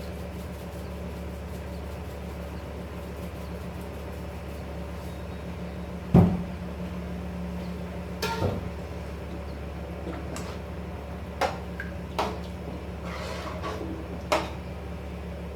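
Kitchen cookware and utensils knocking: one loud knock about six seconds in, then several lighter clicks and knocks, over a steady low hum.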